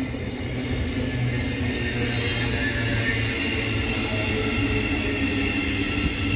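Thameslink Class 700 electric multiple unit running past: a steady rumble of wheels on rail, with a faint high whine over it.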